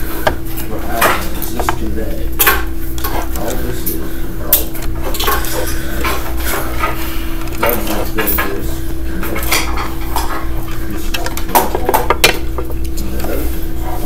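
Irregular metallic clinks and rattles of a steel electrical box and its wires being handled while wires are twisted together under a yellow wire nut, over a steady hum.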